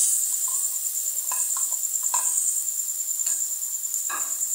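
A steel spoon stirs and scrapes onion and tomato masala frying in a steel pan, with four short clinks of the spoon against the pan. A steady high hiss runs underneath.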